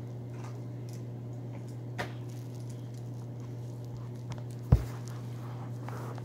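Footsteps on carpet close to the microphone, with a small click about two seconds in and one sharp thump nearly five seconds in, over a steady low hum.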